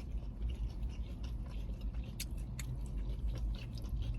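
Close-up chewing: a person eating with soft, wet mouth sounds and small crunches over a low steady hum.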